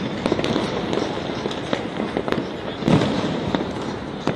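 Many fireworks and firecrackers going off across a city at once: a continuous stream of bangs and pops of differing strength, loudest about three seconds in.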